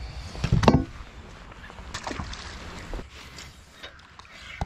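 Handling knocks on a fishing boat: one loud knock with a low thud about half a second in, then several lighter clicks and taps.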